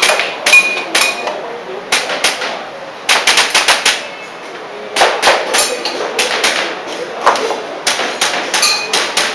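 Airsoft pistol shots in quick strings of sharp cracks, several clusters with short gaps between them, the fastest run of about eight shots a little after three seconds in.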